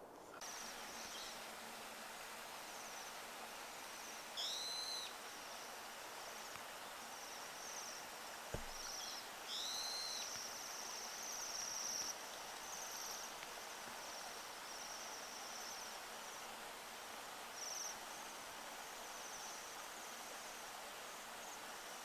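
Bohemian waxwings giving high, thin ringing trills that come and go, with louder arching call notes about four and a half seconds in and again near ten seconds.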